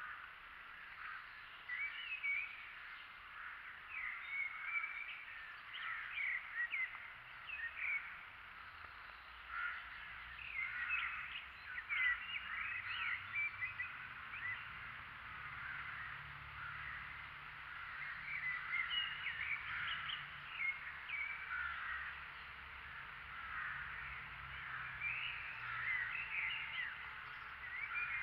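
Birds calling continuously, a dense mix of short chirps and harsher calls, some of them crow-like caws.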